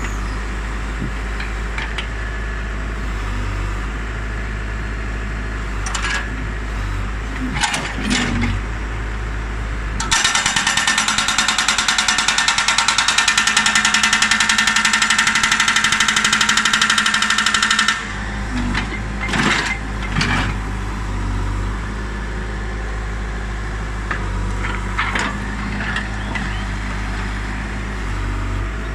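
Diesel digger engine running steadily while a hydraulic rock breaker hammers limestone in rapid, evenly spaced blows for about eight seconds in the middle, then stops abruptly. A few metal knocks and clanks from the arm and breaker come before and after the hammering.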